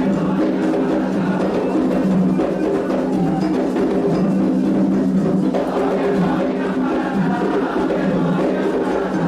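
Candomblé toque for Ossain: atabaque hand drums and percussion playing a steady ritual rhythm, with a chorus of voices singing over it.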